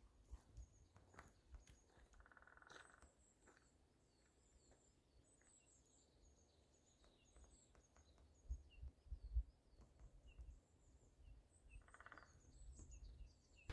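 Faint small birds chirping and twittering, many short high calls scattered throughout. There are a couple of brief lower calls, and a few low bumps about two-thirds of the way in.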